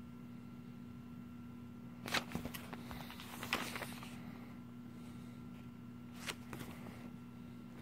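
Comic-book pages being turned by hand: paper rustling in two bursts a couple of seconds in, and a shorter rustle near the end, over a faint steady hum.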